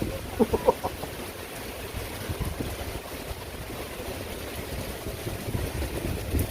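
Rainstorm wind gusting over the microphone with rain hiss, a steady rush with rumbling buffets. A brief pitched sound comes about half a second in.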